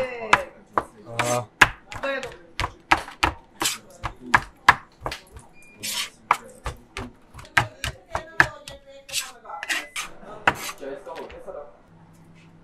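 Metal kitchen utensils clattering: a quick, irregular run of sharp knocks and clinks, about two or three a second, stopping near the end.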